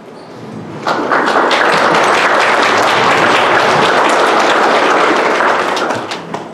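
Audience applauding, starting suddenly about a second in and dying away after about five seconds.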